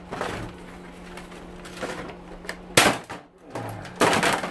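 Plastic parts of an air cleaner's housing clicking and clattering as they are handled and pried apart, with one sharp knock about three seconds in and a louder rattle near the end, over a steady hum.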